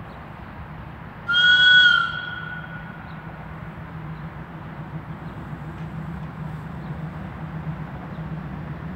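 A short, loud two-tone locomotive horn blast about a second in, tailing off over the following second, then the steady low rumble of an SM30 diesel shunting locomotive moving out of the shed, growing slightly louder.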